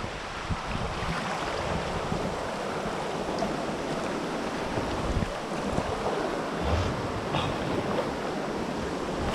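Rushing whitewater of class II river rapids, a steady wash of noise, with wind buffeting the microphone.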